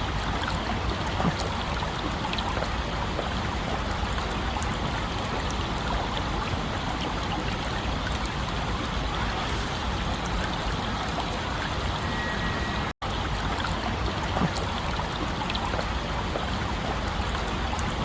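Stream water running and trickling steadily. It cuts out for an instant about 13 seconds in.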